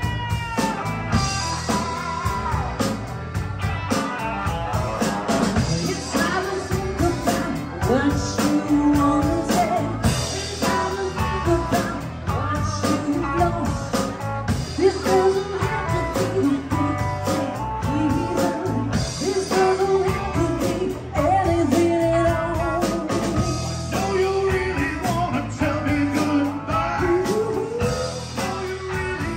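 Live rock-and-blues band playing a song: a woman sings lead over electric guitars and a drum kit.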